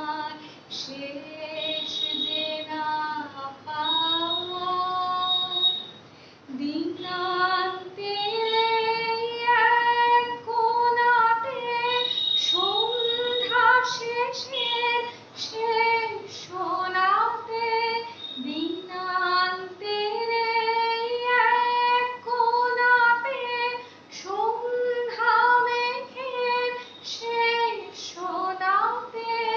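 A woman singing solo without accompaniment, a slow melody of long held notes joined by gliding ornaments, with short breaths between phrases.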